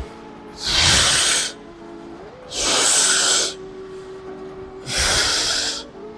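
Heavy breathing from exertion: three long, hard breaths about two seconds apart, over background music.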